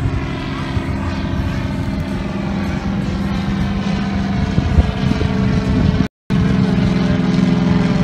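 Small single-engine propeller plane flying overhead, its engine giving a steady drone. The sound cuts out completely for a moment about six seconds in.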